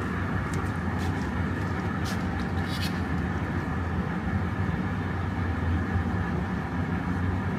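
Steady drone of a gas-fired glass furnace and glory hole, with a low hum underneath, while a piece on an iron rod is reheated in the glory hole. A few light clicks come about two to three seconds in.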